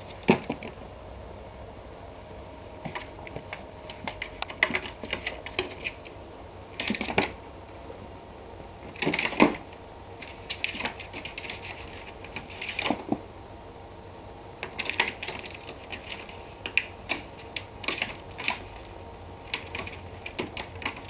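A kitten's claws and paws scrabbling and tapping on a hard plastic laundry basket as it climbs over the rim and in and out. Irregular clicks and short scratchy flurries, with a few louder knocks of the basket.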